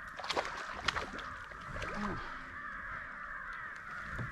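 Birds calling outdoors: a continuous chatter of harsh, crow-like caws, with a few sharp clicks in the first second.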